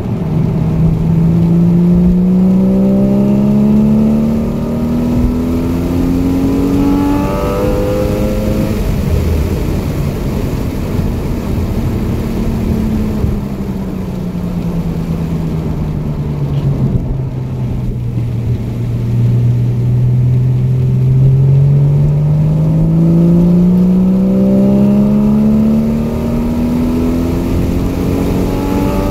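A single car engine running continuously under load. The revs climb for several seconds, then fall away slowly through the middle, then climb again near the end.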